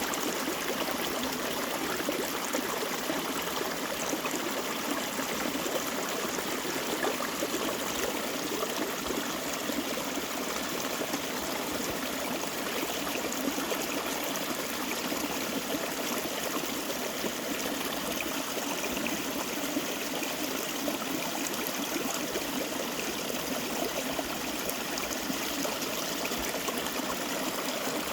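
Mountain stream babbling and trickling over rocks, a steady even rush of water.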